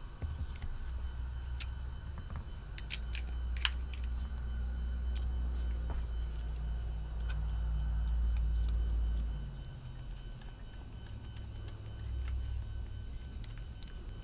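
Small metal clicks and ticks of a bit driver being handled: a bit pulled from a plastic bit holder and a small screw driven into a pocket knife's liner, with a few sharper clicks about three seconds in. A low steady rumble runs underneath for most of the first nine seconds.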